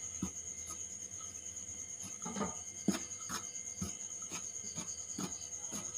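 Steel spoon stirring salt into dry maida flour in a steel bowl, giving soft scrapes and light ticks at irregular intervals, over a steady high-pitched trill.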